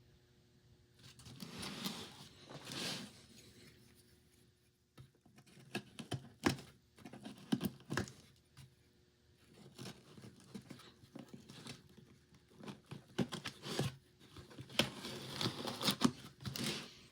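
Cardboard box and packaging being handled at close range: swells of rustling and scraping, with a scatter of sharp taps and knocks and a busier stretch of handling near the end.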